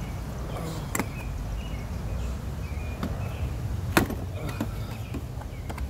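Sharp clicks and snaps of a car's old plastic engine guard being cut and pried away from under the front bumper with a hand tool, three of them, the loudest about four seconds in, over a steady low rumble.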